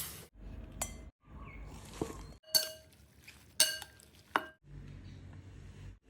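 Cutlery clinking against dishes: a few sharp, ringing clinks about a second apart over faint kitchen noise, broken up by brief dead-silent gaps.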